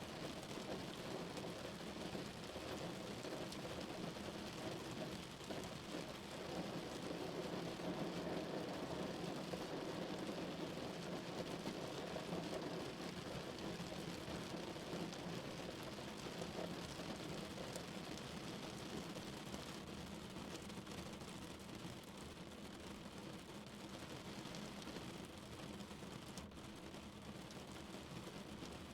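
Rain falling on a car's roof and windows, heard from inside the car: a steady, dense patter, a little louder around the middle.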